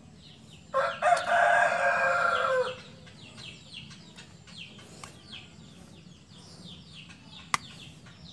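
A rooster crows once, starting about a second in and lasting about two seconds. Small birds chirp in short falling notes throughout, and there is a single sharp click near the end.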